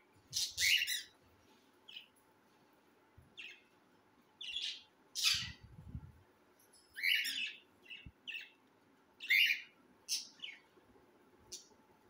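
Young cockatiels chirping and squawking: about a dozen short, harsh calls at irregular intervals.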